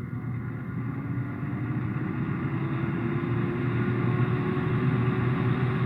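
Air fryer running, its fan motor humming steadily with a whir that slowly rises in pitch and grows a little louder as it spins up.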